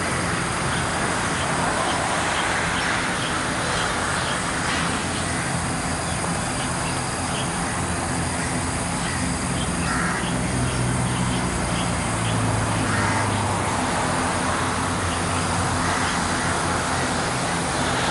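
Steady jet roar of a Boeing 737-200's Pratt & Whitney JT8D engines as the airliner rolls down the runway after landing. Crows caw a few times over it.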